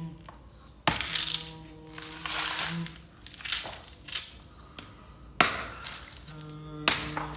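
Rustling and crunching in bursts as fresh red chilies are handled and their stems picked off, over background music with long held notes.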